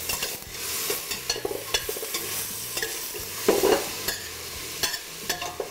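Chopped chilies and jalapeno sizzling in a hot, oiled pan as they are stirred, the utensil clicking and scraping against the metal, with one louder clatter about three and a half seconds in.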